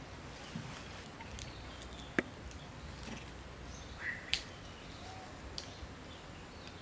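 Quiet outdoor ambience broken by a few sharp clicks, the loudest about two seconds in and just after four seconds, with a brief high chirp just after four seconds.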